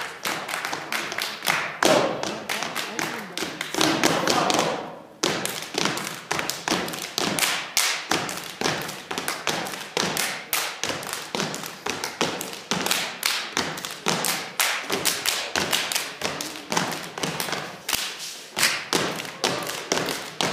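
A step team stepping in unison: a rapid, rhythmic run of foot stomps on the stage floor and hand claps, with a brief break about five seconds in.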